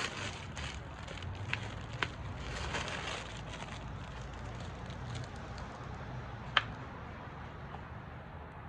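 Rustling and crackling of potting soil and compost being handled while repotting a plant, with scattered sharp clicks, the loudest about six and a half seconds in.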